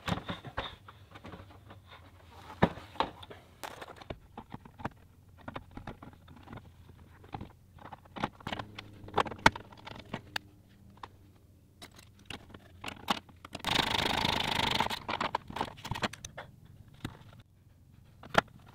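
Knocks, clicks and scraping as a sewer-hose carrier tube is handled and fitted onto a scrap-steel bracket under a trailer, with one loud burst of even noise lasting about a second and a half around two-thirds of the way through.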